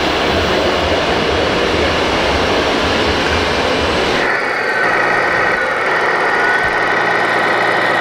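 RC model truck machinery running steadily and loudly: a dense rumbling noise that changes abruptly about four seconds in to a steadier engine-like idle with a high whine above it.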